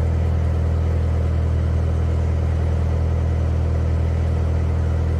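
A narrowboat's diesel engine running steadily, a deep even hum with no change in speed.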